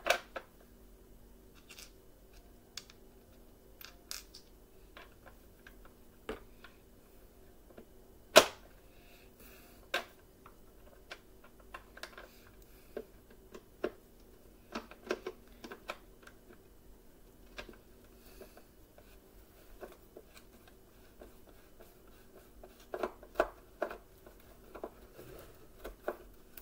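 Scattered clicks and light knocks of a hand screwdriver and hard plastic parts as screws are driven into the plastic base of a Bissell Powerforce Bagless upright vacuum. There is one sharp, loud click about eight seconds in, and small clusters of clicks in the middle and near the end.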